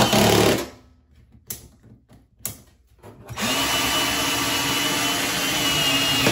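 Cordless drill/driver driving a lag bolt with a washer into a wooden backer board. The motor gives a short burst at the start, then a couple of clicks, then about three seconds in runs steadily with a high whine.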